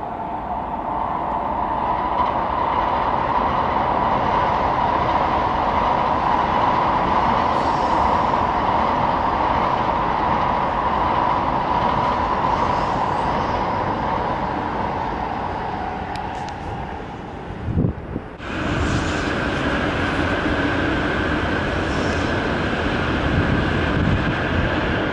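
A 16-car Shinkansen bullet train running past on an elevated viaduct: a steady rushing rail noise with a hum in it. About 18 seconds in the sound briefly drops away with a couple of low thumps, then picks up again with a higher whine over the rush.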